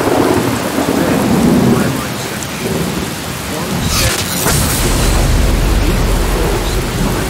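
Steady rain with thunder. A sharp crack about four seconds in is followed by a deep rumble.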